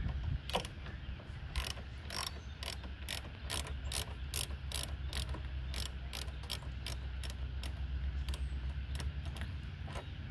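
Ratchet wrench with a 10 mm socket working the nut on a car battery's negative terminal clamp, its pawl clicking about three times a second.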